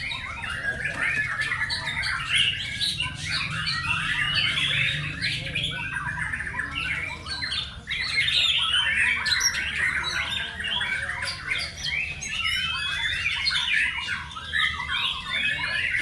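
Many caged white-rumped shamas singing at once in a contest: a dense, unbroken tangle of rapid, varied song phrases overlapping one another.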